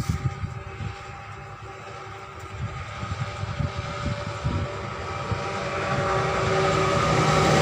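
A steady mechanical hum made of several fixed tones, growing louder over the last few seconds, with scattered low knocks and handling thumps in the first half.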